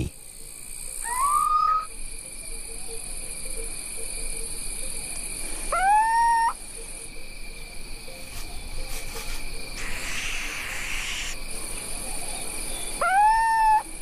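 Little owl calling three times, each call a short hoot that rises in pitch and then holds, several seconds apart, over a steady high-pitched chorus of insects.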